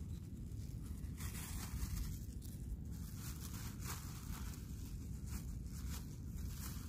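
Thin plastic bag crinkling and rustling in the hand as its dry food is shaken out into a steel pot and the bag is crumpled, in irregular bursts over a steady low rumble.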